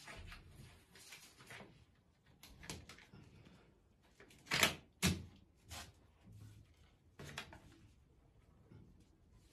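Knocks and scrapes of a ceramic tile being handled and set in place by hand, with two sharp knocks about halfway through.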